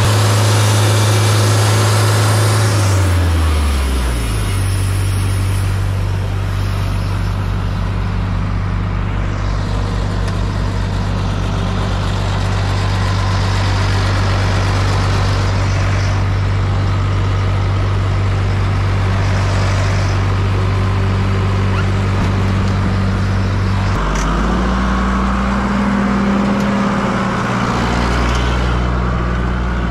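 An engine running steadily, slowing to a lower speed about three seconds in and changing pitch again near 24 seconds.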